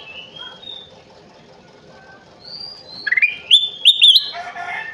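Kutilang emas, a bulbul, singing: a few faint whistled notes at first, then about three seconds in a loud, quick run of rising whistles.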